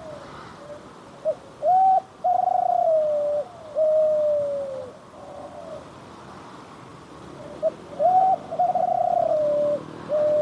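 Spotted dove (derkuku) cooing its song twice, about six seconds apart. Each phrase is a short 'deg', a held rolling 'kutruuu' and a long falling 'kuuu'.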